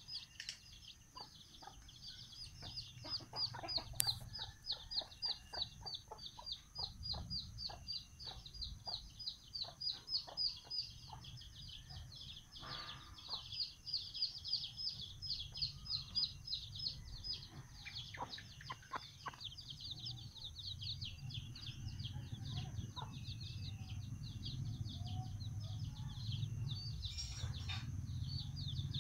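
A brood of chicks peeping rapidly and continuously in high chirps, with the mother hen's soft, quick clucking mixed in through the first two-thirds.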